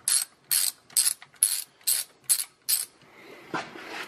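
Hand socket ratchet clicking in short bursts, about two a second, as a 10 mm socket turns the fastener on a snowmobile engine's exhaust valve bellows cover. The clicking stops about three seconds in, giving way to faint rubbing and a scrape.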